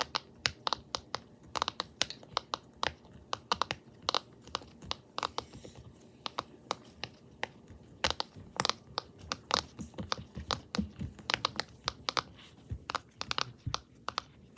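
Large silicone pop-it fidget toy being popped bubble by bubble on its loud side: an irregular run of sharp pops, several a second.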